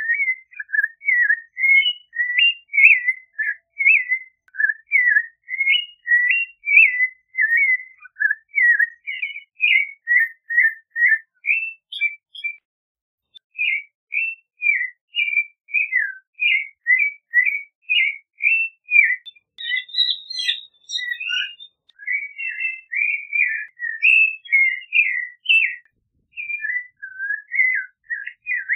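Clay-colored thrush singing: a fast run of short whistled notes, about three a second, with a pause of about a second midway and a few higher notes later on.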